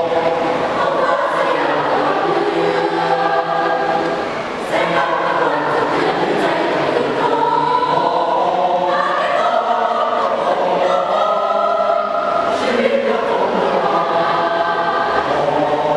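A school choir singing in several-part harmony, with a brief dip between phrases about four seconds in.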